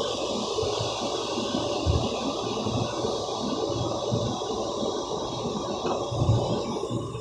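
Automatic car wash running over a car, heard from inside the cabin: a steady rush of water spray with irregular low thuds against the body, strongest about two seconds in and again near the end.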